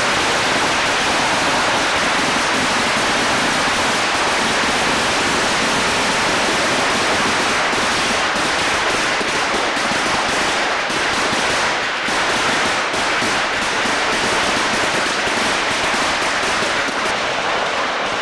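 Firecrackers going off on the ground in a dense, continuous crackle of rapid bangs.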